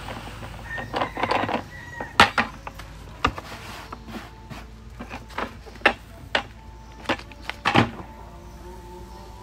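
Potting mix of soil and husks tipped from a plastic bucket into a clay flowerpot, then pressed down by hand, with a scattering of sharp knocks and taps throughout.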